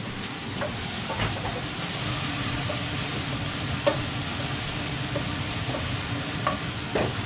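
Minced garlic sizzling in oil in a stainless steel frying pan, stirred with a wooden spoon that clicks and scrapes against the pan now and then.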